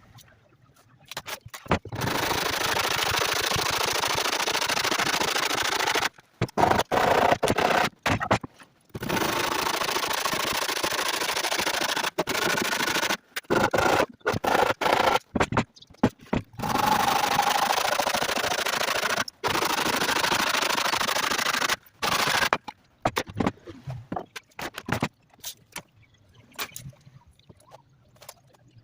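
Wood being scraped or abraded by a tool: a steady rasping noise in long passes of a few seconds each, stopping abruptly several times, with choppier bursts in between.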